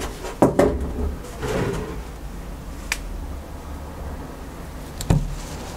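Several knocks and clatters of hard objects being handled, loudest about half a second in, with a single click near the middle and another knock near the end, over a steady low background noise.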